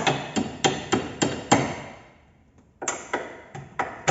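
Hammer blows on a car's front lower control arm as it is knocked into place during a ball joint replacement: a quick run of about seven sharp strikes, a pause of about a second, then about five more.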